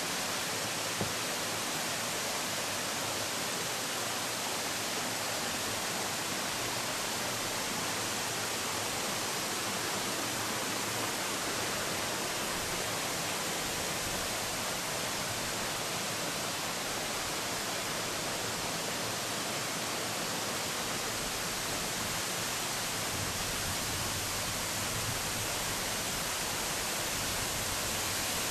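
Mountain waterfall and its cascades pouring over rocks into a stream: a steady rushing of falling water, growing a little fuller and deeper near the end.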